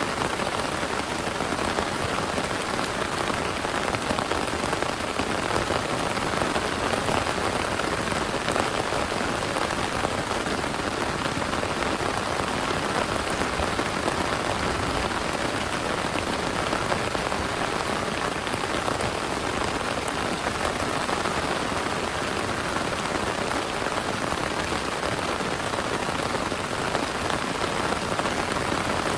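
Heavy rain falling steadily, an even hiss of many drops with no thunder.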